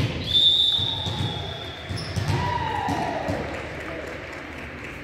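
Basketball dribbled and bouncing on a gym court, with thuds of footsteps and voices echoing in the hall. A high squeak comes just after the start and fades, and a falling squeal comes midway.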